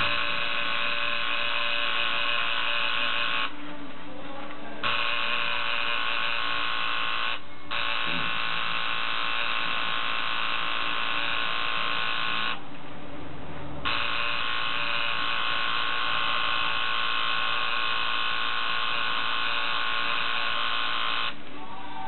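Coil tattoo machine buzzing steadily as it works on skin. It cuts out three times, once only for a moment, and stops shortly before the end.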